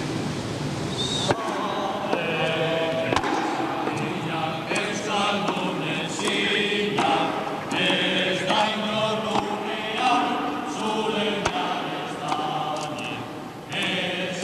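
A group of voices singing together in a slow, chant-like song, with a few brief knocks.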